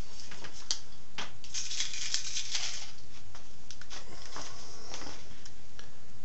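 Scattered light clicks, taps and scraping of hands handling small workshop hardware, with a longer stretch of scraping about one and a half to two and a half seconds in.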